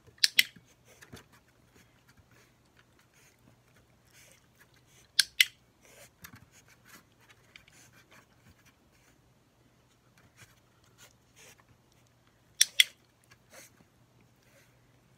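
Dog-training clicker clicked three times, each a sharp double click of press and release, marking a pug puppy's paw lift for a treat. Faint scuffles and small mouth sounds from the puppy lie between the clicks.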